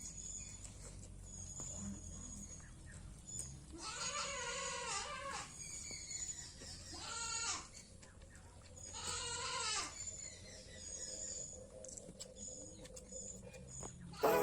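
An animal calling three times in wavering, pitched calls: about four, seven and nine seconds in.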